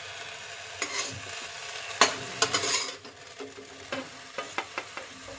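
Steel spatula scraping and knocking against a steel kadhai and a steel plate as fried flowers are pushed out onto the plate, over a steady sizzle of hot oil. The loudest scrapes come about two seconds in and just after.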